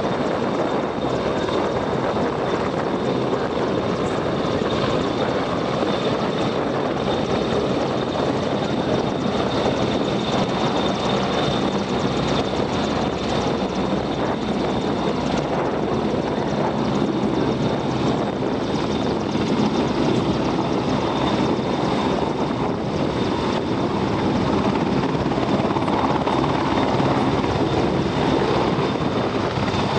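Royal Navy AgustaWestland Merlin helicopter in a low hover: steady rotor and engine noise with a constant thin, high turbine whine, growing a little louder near the end.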